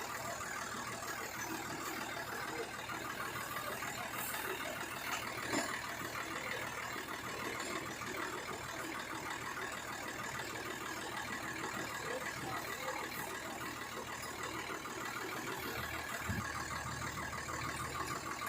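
Engine of a rice-threshing truck idling steadily, with a fast, even pulse.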